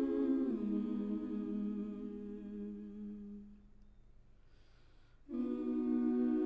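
Background music of wordless a cappella vocal harmony: a held, hummed chord that steps down in pitch about half a second in and fades away, then after a brief pause a new held chord comes in about five seconds in.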